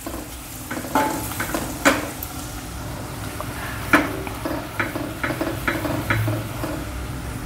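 Onions, garlic, green chillies and freshly added chickpea flour sizzling in hot oil in a stainless steel kadai, stirred with a wooden spatula. The spatula scrapes and knocks against the pan several times, with the loudest knock about four seconds in.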